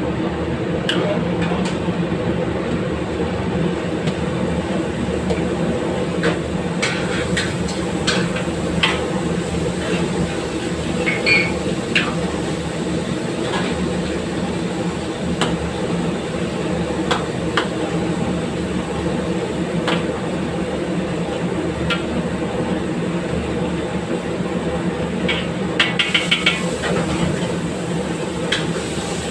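A metal ladle scrapes and knocks against a steel wok as a chicken curry is stirred: scattered clinks, with a quick run of taps near the end. Under it runs a steady low rumble from the commercial gas range or its extraction.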